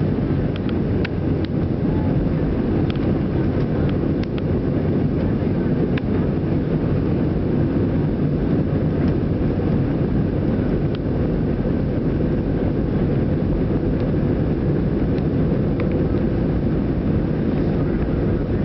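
Airbus A319 jet engines and rolling noise heard inside the passenger cabin as the airliner moves along the runway: a steady, even, low rumble with a few faint cabin rattles in the first few seconds.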